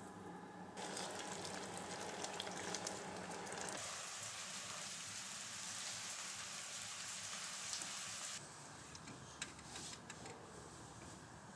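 Faint sizzling from a frying pan of pasta and vegetables. The sound changes about four seconds in to a steadier, higher hiss. It eases off after about eight seconds, leaving a few light clicks.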